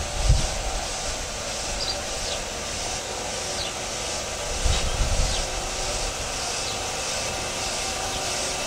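Automatic rollover car wash gantry running along a car, its rotating brushes and drive giving a steady mechanical hiss. A few low thumps stand out, the strongest just after the start and again about five seconds in.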